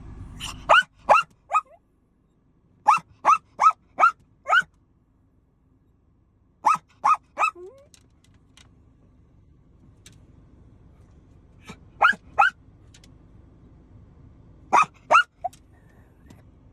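A dog crying in short, high-pitched rising whines and yelps, in clusters of two to five, with quiet pauses between them. These are the distress cries of a dog separated from its owner, who has just left the room.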